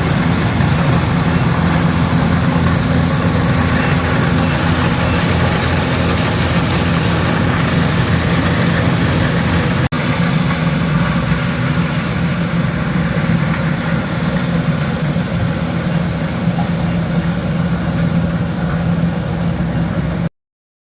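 Engine of farm harvesting machinery running steadily with a low, even hum. There is a momentary break about halfway through, and the sound cuts off abruptly just before the end.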